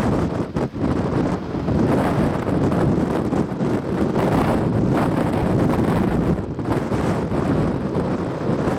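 Blizzard wind blowing hard and gusting, buffeting the microphone with a continuous low rumble that rises and falls.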